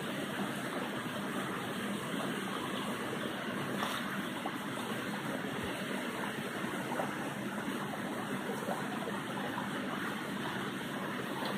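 Shallow stream running over stones: a steady babbling flow of water with small scattered trickles and splashes.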